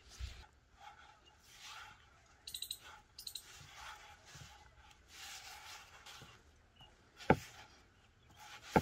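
Hands kneading flour and water into dough in a clay bowl: faint, soft squishing and rubbing of the sticky dough, with two sharp clicks about seven seconds in and again near the end.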